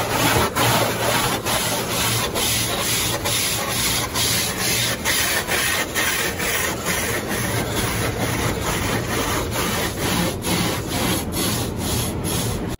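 Car-wash cloth brushes scrubbing the car's body, heard from inside the cabin: a continuous rubbing swish with a regular rhythm of about two strokes a second.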